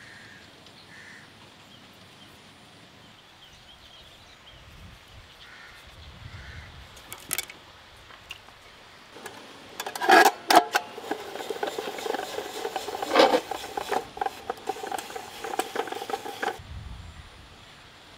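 Hand-cranked spiral potato cutter being turned, its blade shaving a skewered potato into a spiral with metallic clicking and scraping; it starts about halfway through and stops abruptly near the end. Faint bird chirps before it.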